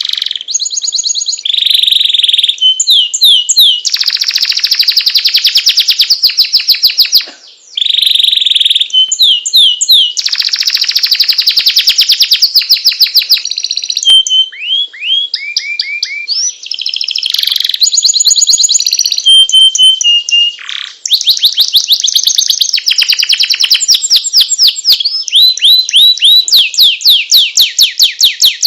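Domestic canary singing long rolling trills: rapid, evenly repeated high notes strung into long runs, some very fast and some slower, with a few brief pauses.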